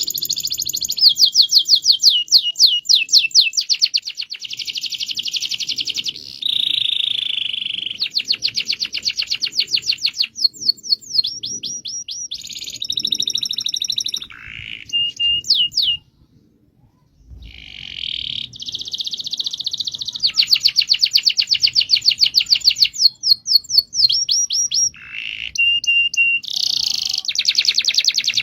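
Domestic canary singing long rolling trills: runs of fast, high-pitched repeated notes lasting a few seconds each, with a brief pause a little past the middle.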